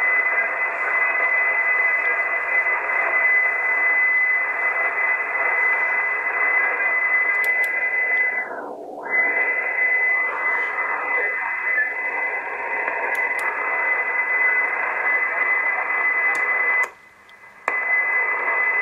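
Icom IC-751 HF receiver on sideband tuned to 6516 kHz, giving steady static hiss with a steady high heterodyne whistle. About halfway through, a tone dips and glides down and back up as the receiver's controls are adjusted. Near the end the audio cuts out for about a second.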